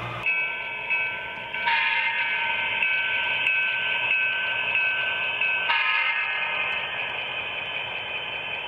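Air horn from an HO-scale Western Pacific diesel locomotive's DCC sound decoder, played through the model's small onboard speaker, so it sounds thin with no low end. It gives a short blast, then a long held chord that changes tone about six seconds in.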